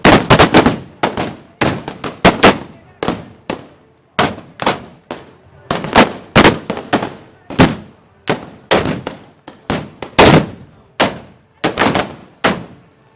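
Black-powder arquebuses (arcabuces) fired by many shooters in quick succession: an irregular, continuous volley of loud sharp shots, about two or three a second, each with a short echoing ring.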